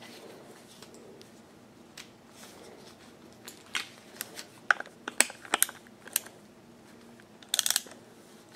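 Small hard clicks and clinks from working a screwdriver with a snapped-off bit and handling the clipper's parts. They come in a scattered run through the middle and a short cluster near the end.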